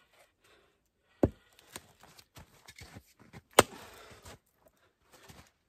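Axe splitting firewood: two sharp blows, about a second in and again near the middle, with smaller knocks of split pieces between them.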